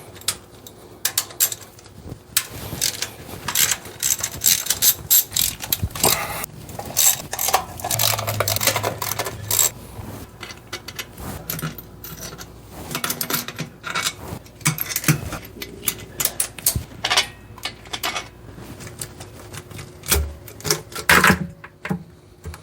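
Hand ratchet and socket clicking in quick runs with the odd metal knock, loosening the intake manifold bolts on a Chevy Vortec 350 V8.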